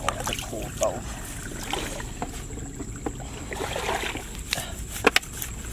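Muddy water running and sloshing through a narrow cut in a mud bank under a bamboo fish trap, with hands splashing in the water as the trap is set. Two sharp knocks come close together near the end.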